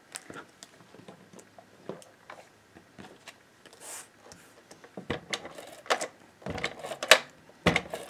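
Paper pieces and craft tools handled on a cutting mat: a few light taps and rustles at first, then a busier run of clicks and knocks in the last few seconds.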